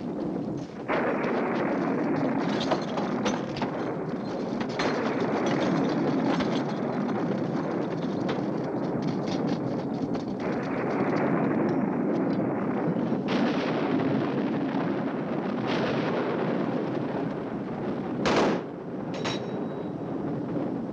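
Thunderstorm noise: continuous rumbling with many sharp crackles, and a louder crash about eighteen seconds in.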